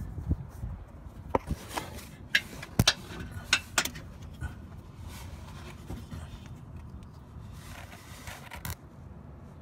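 Handling noise from a phone camera being moved about: a quick run of sharp clicks and scrapes in the first four seconds, then softer rubbing, with a short scrape near the end.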